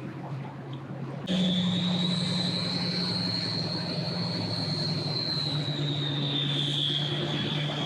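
A boat's engine starts up suddenly about a second in and runs loudly with a steady high whine over a low hum; the whine rises slightly and then sags.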